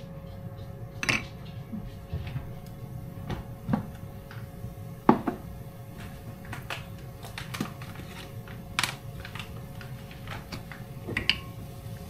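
A plastic cooking spoon knocking and clinking against a non-stick frying pan of simmering broth, a handful of separate knocks with the loudest about halfway through, over a steady low hum.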